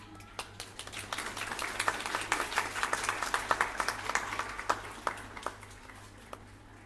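Audience applauding, swelling over the first couple of seconds and dying away about five seconds in.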